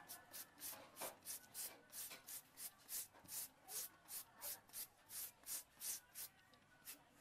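A raw carrot being shredded on a handheld julienne grater: quick, even scraping strokes, about three a second, each shaving off thin strips. The strokes stop about six seconds in, with one last stroke near the end.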